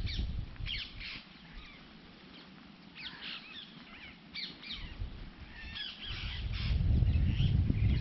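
Several small birds chirping and calling in short phrases, repeatedly. A low rumble underneath comes in near the start and is loudest over the last two seconds.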